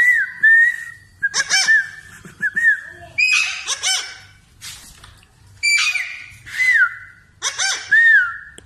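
Parrot calling over and over: harsh, squawking cries, each running into a short whistled note that dips and comes back up, repeated about every one to two seconds.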